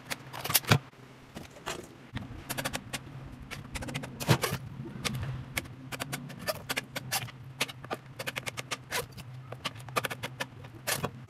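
Kitchen knife cutting bananas on a plastic cutting board: a quick, irregular run of sharp taps as the blade strikes the board.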